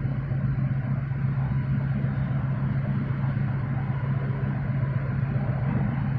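Large container ship under way, its machinery giving a steady low hum with a deeper rumble underneath.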